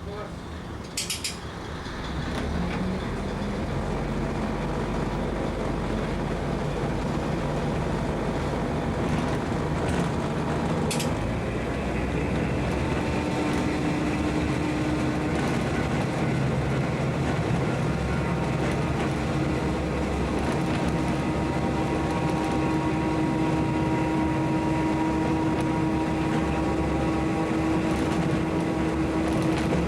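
KiHa 200 diesel railcar running, heard from the cab: the engine builds up over the first couple of seconds and then holds a steady drone, with a steady whine joining about halfway. Two short sharp clicks come about a second in and again about a third of the way through.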